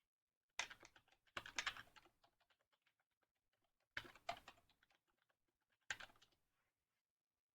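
Typing on a computer keyboard in three short runs of rapid key clicks: the first about half a second in, another around four seconds, and a short one near six seconds.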